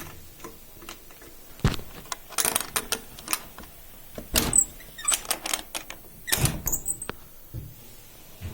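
Irregular handling noises: scattered sharp clicks and knocks with short rustling scrapes, the loudest about 1.5, 4.5 and 6.5 seconds in.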